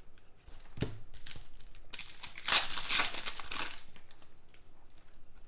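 Trading cards and foil card-pack wrappers handled by hand, crinkling and rustling in irregular bursts that are loudest around the middle, with a light knock about a second in.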